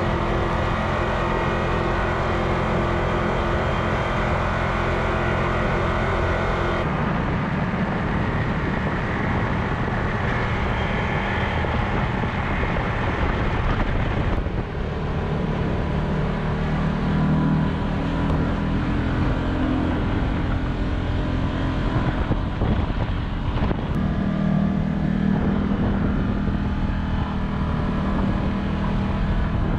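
Can-Am side-by-side UTV engine running steadily as the machine drives along the trail, heard from on board. The sound changes abruptly twice, at about 7 and 14 seconds in, where clips are cut together.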